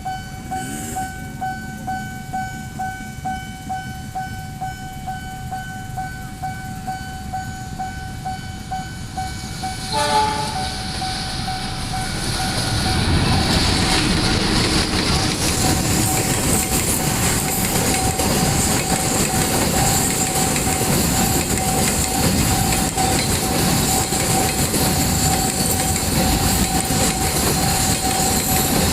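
Railway level-crossing warning signal sounding a steady tone that pulses about twice a second. About ten seconds in a train sounds a short horn blast, and from about thirteen seconds a train passes loudly with rumbling and wheel clatter, the crossing signal still sounding over it.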